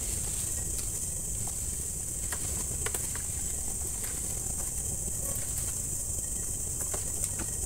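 Steady high-pitched chorus of night insects, over a low rumble with scattered faint clicks.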